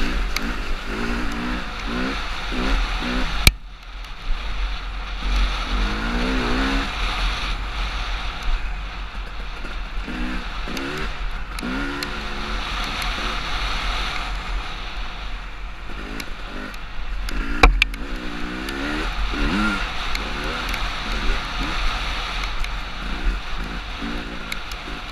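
Off-road vehicle engine heard from the rider's helmet, revving up and down over and over as it accelerates and backs off along a trail, with a steady low rumble of wind on the microphone. Two sharp knocks cut through, one a few seconds in and one about two-thirds of the way through.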